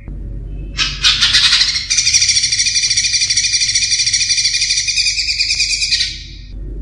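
Cucak ijo (green leafbird) singing: a loud, rapid, trilling phrase that starts about a second in and runs for about five seconds before stopping shortly before the end.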